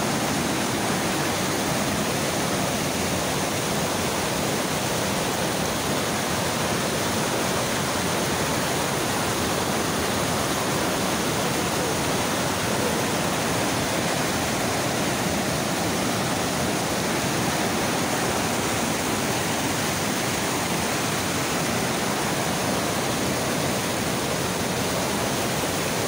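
Waterfall in heavy flood: a steady, unbroken rush of falling water.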